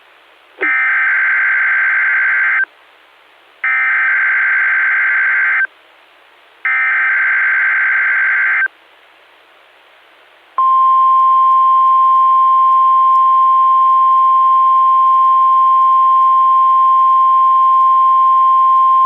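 NOAA Weather Radio Required Weekly Test signal, heard through a handheld receiver's earphone output. Three two-second bursts of the EAS/SAME digital header data come about a second apart, then from about ten seconds in the steady 1050 Hz warning alarm tone sounds.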